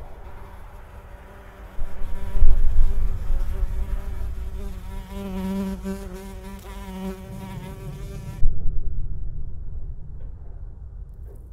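A fly buzzing about, its pitch wavering. A deep low rumble swells in about two seconds in and again about eight and a half seconds in, louder than the buzz.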